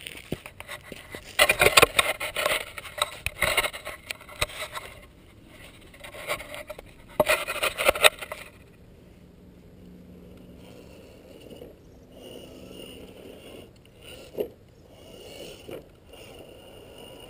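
Loud irregular scraping and rubbing for about the first eight seconds. Then the faint steady whine of a small RC crawler's brushed motor and gears, with a few light knocks.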